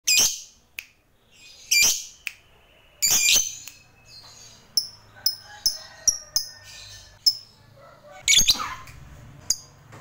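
A lovebird calling: loud, shrill screeches in short bursts, with a run of short sharp chirps in the middle and another loud burst of screeches near the end.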